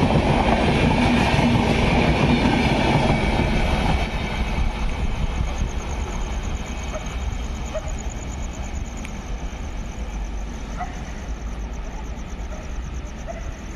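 Train passing on the track with wheels clattering over the rails. It is loud for the first four seconds, then drops suddenly and keeps fading as it moves away.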